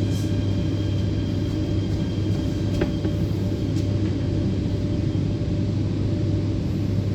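Steady low rumble and hum inside the carriage of an MTR Rotem electric multiple unit train, with faint steady whining tones above it. A single short click comes about three seconds in.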